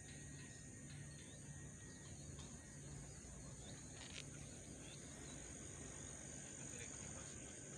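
Faint, steady high-pitched insect chorus trilling without a break, over a low hum that pulses at an even rate.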